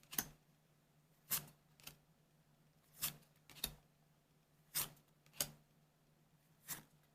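Trading cards handled one at a time, each card slid or flicked off the stack with a short crisp sound. The sounds come mostly in pairs about half a second apart, a pair every one and a half to two seconds.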